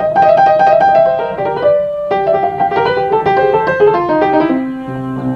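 Upright acoustic piano played by hand: a quick run of single notes that steps lower about four seconds in and settles on a held low chord near the end.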